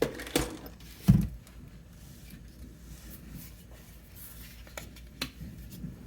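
Plastic paint bottles and cups being handled and set down on a work surface: a few short knocks and clicks, the loudest a dull thud about a second in, over a low steady hum.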